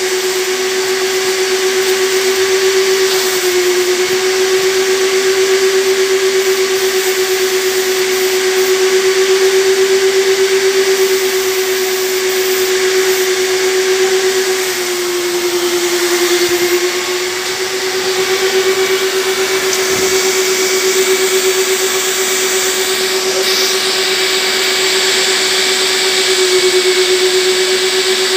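Upholstery extraction machine's vacuum motor running steadily, sucking through the hand upholstery tool and hose as it is drawn across fabric; a steady whine over a rush of air that sags slightly in pitch a few times.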